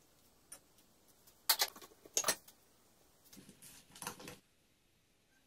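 A metal spoon clinking against a glass bowl: two sharp clinks in the first half, then a run of lighter ticks and scrapes.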